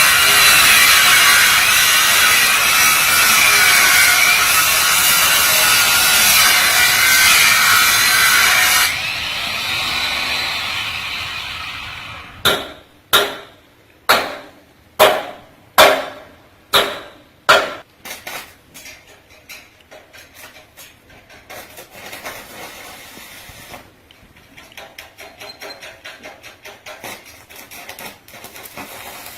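A power grinding tool runs loudly with a wavering whine for about nine seconds, then winds down. Next come about eight sharp hammer blows, roughly one every two-thirds of a second, followed by a long run of faster, quieter ticking.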